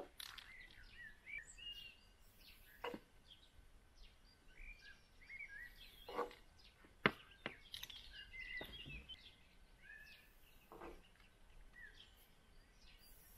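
Small birds chirping repeatedly in short rising and falling notes, with scattered knocks and clicks, the sharpest about seven seconds in, and a short hiss near the end.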